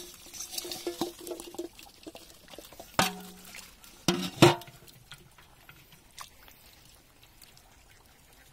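Aluminium bowl knocking against the rim of a pot of freshly caught small fish, each knock ringing briefly, with water and fish splashing and trickling as the bowl is tipped out. The loudest clanks come about three and about four and a half seconds in; after that only faint wet handling sounds remain.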